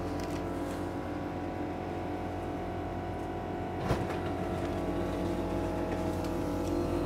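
Frozen-food vending machine humming as it works to dispense a paid-for item, a steady hum of several tones with one clunk about four seconds in. The hum grows a little louder in the later seconds.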